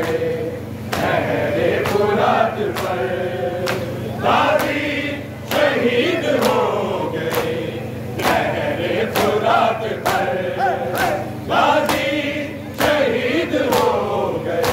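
A group of men chanting a Muharram nauha lament together, with sharp slaps of hands beating on chests (matam) about twice a second.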